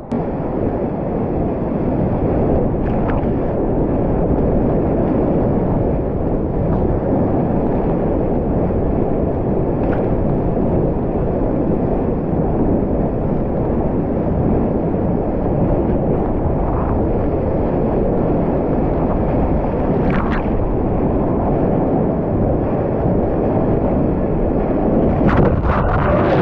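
Steady, loud rushing of whitewater and wind on the microphone, with a few brief knocks or splashes.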